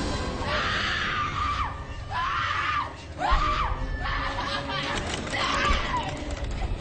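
A person screaming in a run of about five loud, high cries, one after another, with music underneath.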